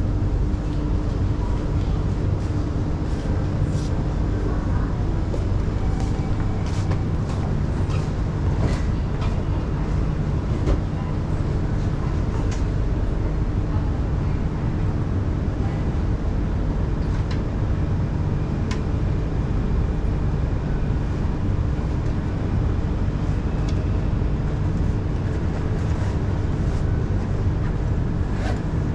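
Singapore MRT Circle Line train standing at a station with its doors open: its air-conditioning and onboard equipment keep up a steady hum with a constant low tone, broken by scattered light clicks and knocks.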